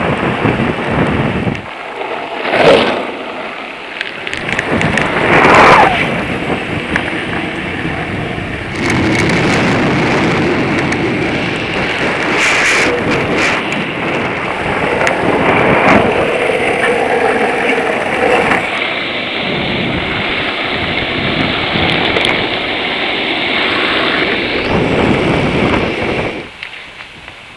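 Skateboard wheels rolling fast over rough asphalt close to the microphone: a loud, steady rumbling hiss, with louder swells about three and six seconds in, that drops away near the end.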